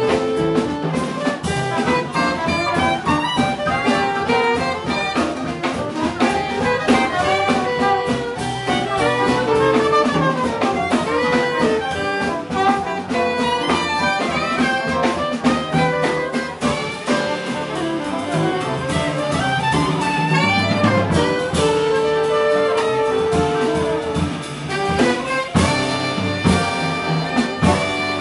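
Jazz sextet playing live: two soprano saxophones and a trombone over piano, double bass and drum kit, with a long held note about three-quarters of the way through.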